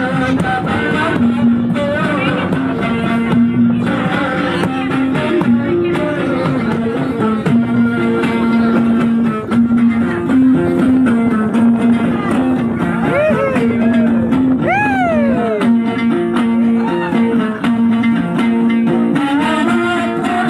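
Background music: a guitar-driven song.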